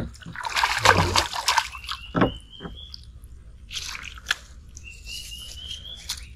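Hooked snakehead fish thrashing at the surface on a long line, splashing hard for about a second near the start, then lighter splashes and sloshing water.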